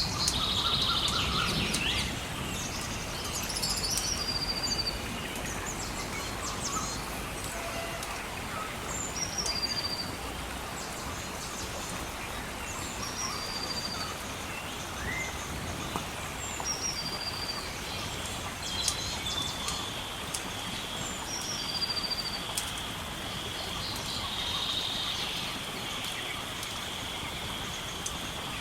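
Songbird repeating a short, high, falling phrase every few seconds over a steady hiss of running water, with scattered crackles from a burning log fire.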